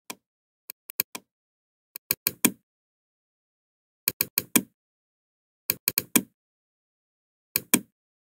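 Computer mouse clicking in quick groups of two to four sharp clicks, a group every second and a half to two seconds.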